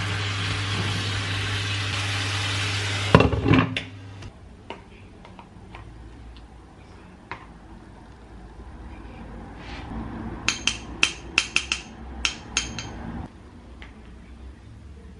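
A steady electrical hum under a loud hiss for about three seconds, cut off with a clunk. Later, a quick run of about ten sharp, ringing clinks of kitchenware knocking together.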